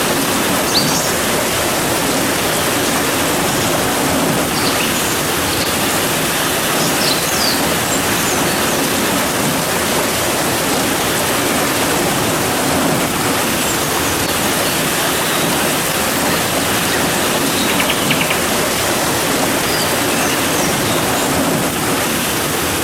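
Steady, even rain with faint short bird chirps now and then.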